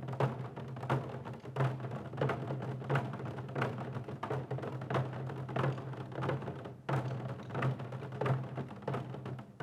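Korean drums struck in a steady rhythm, with a strong beat about every two-thirds of a second and lighter strokes between, over a steady low hum.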